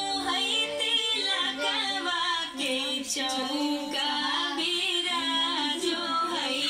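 A song with a woman's singing voice, a continuous melodic vocal line over music.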